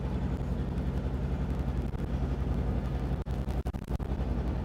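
A 1953 crane's engine running steadily while the crane hoists a load on its hook.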